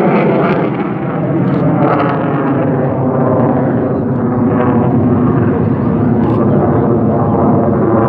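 Military jet flying past low overhead: a loud, continuous jet engine roar that holds steady, dipping slightly about a second in.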